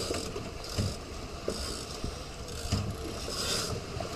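Wind buffeting the microphone and choppy water splashing past a moving boat's hull, with a low engine running underneath.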